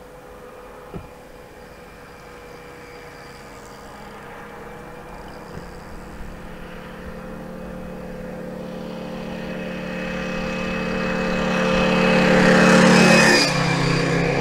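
A train approaching and passing close by: a steady engine note grows louder for about thirteen seconds, then drops in pitch as it goes past near the end.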